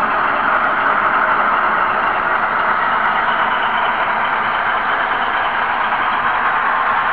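Steady, even rushing noise from the onboard camera car of an N-scale model railroad as it runs along the track, with no distinct clicks or rhythm.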